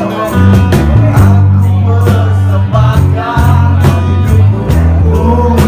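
A romantic Indonesian song with a steady drum beat, bass and guitar, and a singing voice over them.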